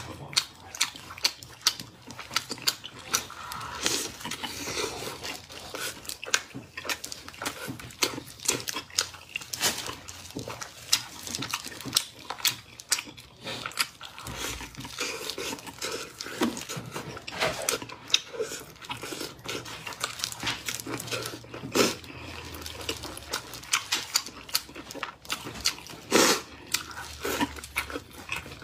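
Close-miked eating of bone-in meat in chili sauce: wet chewing, biting and gnawing at the meat, heard as a dense, irregular run of mouth clicks and smacks.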